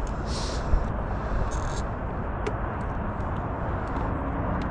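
Steady wind noise on the microphone, heaviest in the low end, with two short scraping hisses in the first two seconds and a few faint clicks, the sort made by walking on a rocky desert trail.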